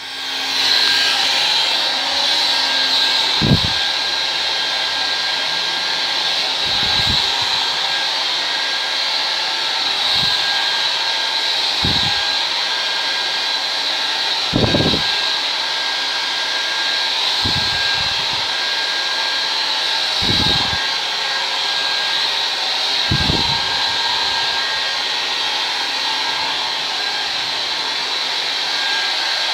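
Handheld hair dryer switched on and blowing steadily, a strong even hiss with occasional brief low bumps.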